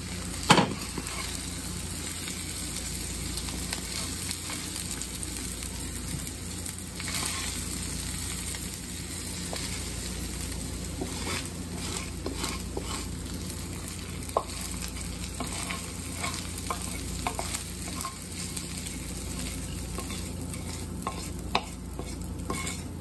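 Food sizzling in a frying pan, with a sharp knock of a utensil against the pan about half a second in and occasional smaller clicks and scrapes after it.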